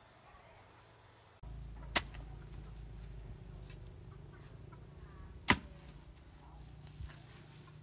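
A metal hoe chopping into soil, two sharp strikes about three and a half seconds apart with a few lighter scrapes and knocks between, over a steady low hum.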